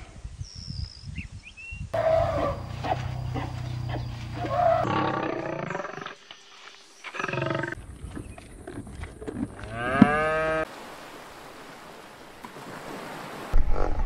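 Cattle mooing: several long, low calls. The last one rises in pitch and cuts off sharply about ten and a half seconds in.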